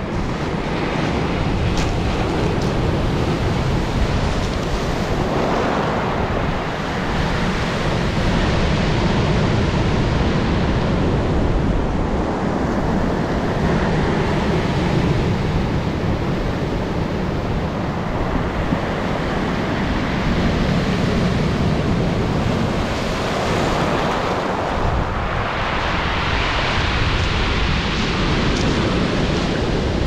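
Rough Black Sea surf breaking and washing up a pebble beach, a continuous rush that swells as each wave breaks and is loudest near the end.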